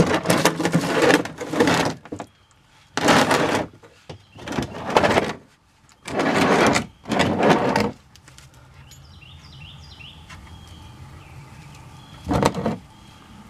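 A ratchet wrench working the oil drain plug loose, in a run of short noisy bursts of under a second to two seconds each. Birds chirp faintly from about eight seconds in, with one more burst near the end.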